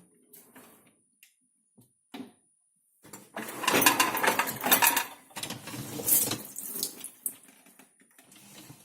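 Hotpoint dishwasher being opened after its cycle: a few light clicks, then about three seconds in a loud run of rattling and clattering for about four seconds as the rack rolls out with the dishes in it, trailing off into lighter clicks.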